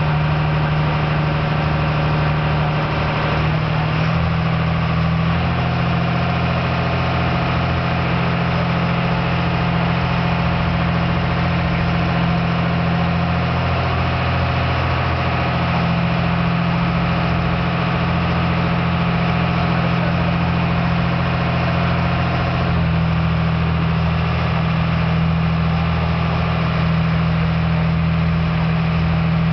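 The Heisei Iroha Maru ferry's engine running steadily while the boat is under way: a deep, even hum whose note shifts slightly about four seconds in and again near the end.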